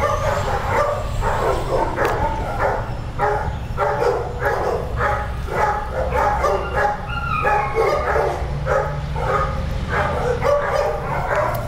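Several kennel dogs barking without pause, short overlapping barks coming about three a second, over a steady low rumble.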